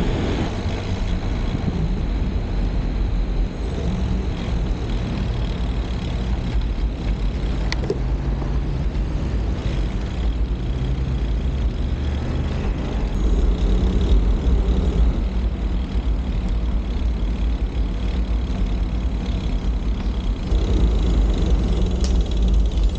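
Steady wind rushing over the microphone with road noise, as heard while riding a road bike at speed.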